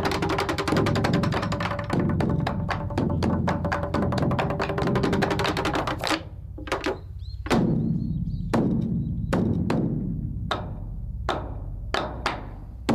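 A Buddhist temple wooden fish (mokeo) beaten with sticks inside its hollow body: a fast roll of strikes for about six seconds, then slower, evenly spaced single strikes, each ringing briefly in the hollow wood.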